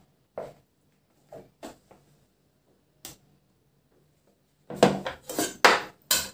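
A plastic spatula scraping and tapping whipped cream out of a plastic mixing bowl, a few soft knocks, then a louder clatter near the end as the bowl and spatula are set down on the table.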